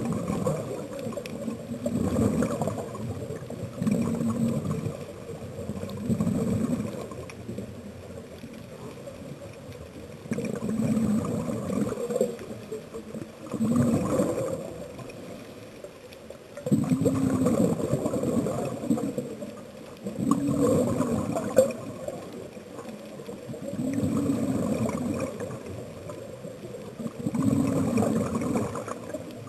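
Scuba diver breathing through a regulator underwater: gurgling bursts of exhaled bubbles, each lasting one to two seconds and coming every few seconds, over a steady underwater hiss.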